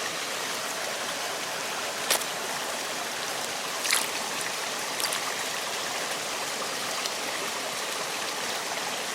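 Creek water running steadily over its bed, with a few light clicks.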